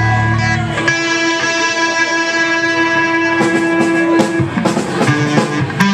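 Live band music led by guitar: a long sustained guitar note held for about three seconds, then a quicker run of notes near the end.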